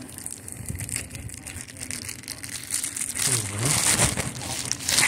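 Plastic poly shipping mailer being handled, crinkling and rustling irregularly, louder in the second half.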